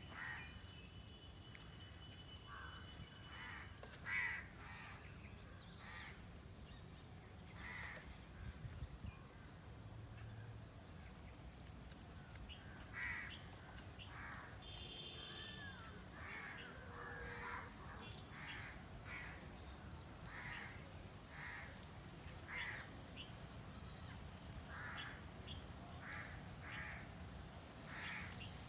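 Birds calling outdoors: short separate calls, sparse at first, then repeating about once a second through the second half, over a steady low background rumble.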